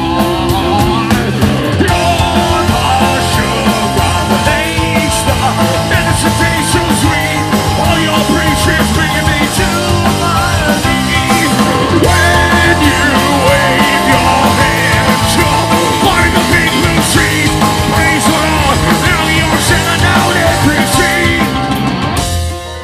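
Live heavy rock band playing loud: electric guitar, bass and drums in a passage between sung lines. The full band cuts off abruptly just before the end.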